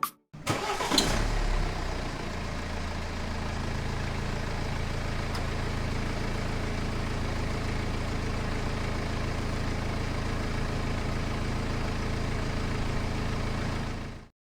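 Small engine starting with a short louder burst, then running steadily at an even idle until it cuts off suddenly near the end.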